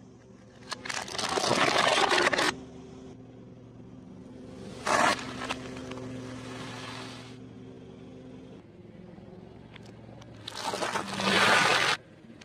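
A car tyre rolling over and crushing objects on concrete: a loud crunching burst lasting about two seconds near the start, a short sharp one about five seconds in, and another two-second crunch near the end. A low steady hum runs under the first two-thirds.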